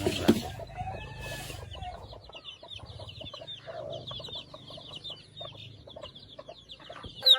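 A flock of baby chicks peeping continuously, a dense chorus of many short high chirps. A couple of sharp knocks come right at the start.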